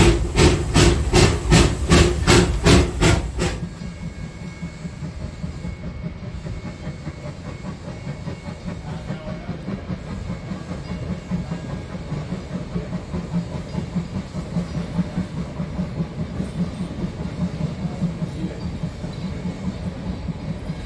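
A narrow-gauge steam locomotive's exhaust beating loudly and evenly, about four beats a second, heard from the footplate. The sound cuts off abruptly after about three and a half seconds. It gives way to a steam locomotive chuffing steadily at a distance, growing gradually louder as it approaches.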